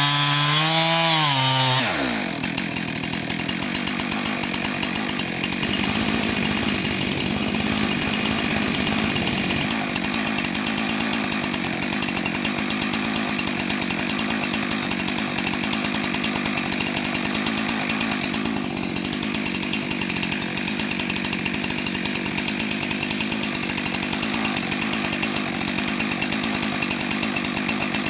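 Husqvarna 372XP two-stroke chainsaw cutting through a log at high revs, its pitch wavering under load; about two seconds in the revs fall away and the saw runs on at a steady idle.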